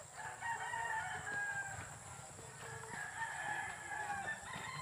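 Rooster crowing twice, two long drawn-out calls one after the other.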